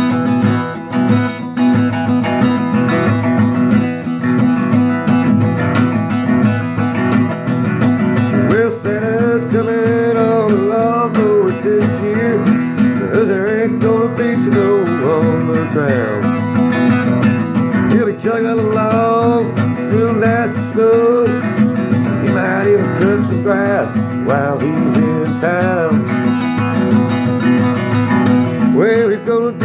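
Acoustic guitar strummed, the instrumental intro of a country-style song. A wavering melody line joins over the guitar about eight or nine seconds in.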